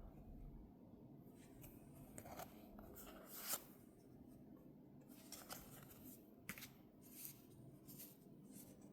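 Faint, scattered rustles and light clicks of hands handling Pokémon trading cards, the loudest about three and a half seconds in.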